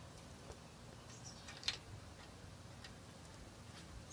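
Faint clicks and light handling noise from a cardboard box of Esbit fuel tablets being worked open by hand, with one sharper click a little under two seconds in.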